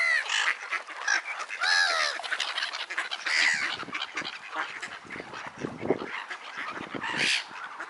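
A crowd of pond waterbirds calling over one another: many short, harsh, overlapping calls as the birds gather to be fed. Ducks quack among the calls of gulls.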